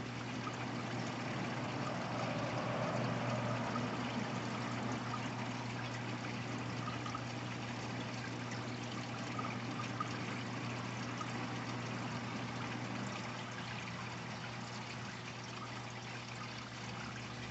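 Steady water noise with a low steady hum under it, swelling slightly a few seconds in.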